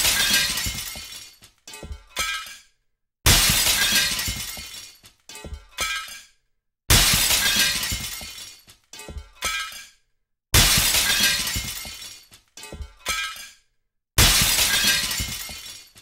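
A large window pane shattering, the same crash repeated about every three and a half seconds. Each is a loud, sudden crash that dies away over a second or so, followed by two shorter bursts of glass fragments falling and tinkling.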